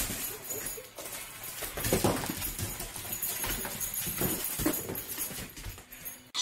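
A dog's claws clicking on a hardwood floor as it moves about, with irregular knocks and paper rustling among gift bags and wrapping.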